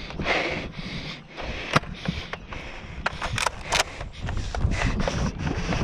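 Rustling and bumping of a handheld camera being carried at a run, with wind on the microphone in rough surges and a few sharp clicks near the middle.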